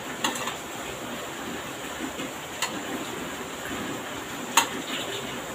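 Metal spoon clinking against a ceramic plate of rice, three separate clinks with the last the loudest, over a steady background hiss.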